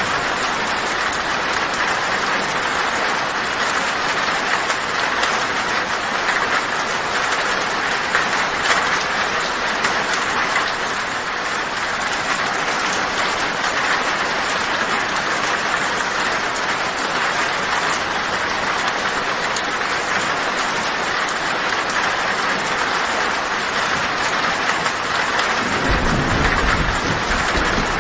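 Heavy rain drumming steadily on a tin (corrugated metal) roof, a dense even hiss. Near the end a low thunder rumble comes in under the rain.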